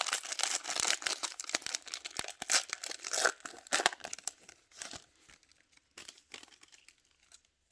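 Wrapper of a baseball card pack being torn open and crinkled: dense crackling for the first four seconds or so, then sparser, lighter rustles that die away near the end.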